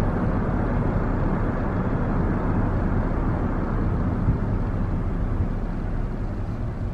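Steady road noise of a car driving along: tyres and engine making an even low rumble.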